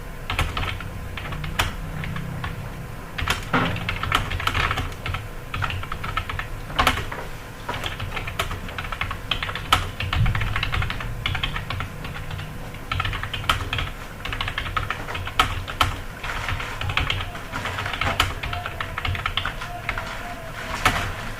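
Fast, continuous typing on a computer keyboard: a dense run of key clicks with occasional louder single strikes.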